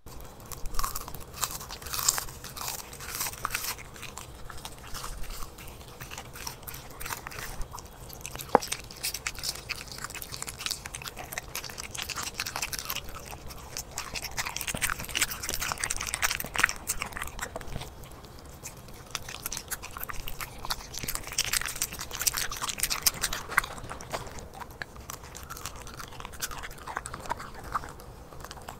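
A corgi chewing and crunching raw meat hand-fed to it: a steady run of irregular wet crunches and bites.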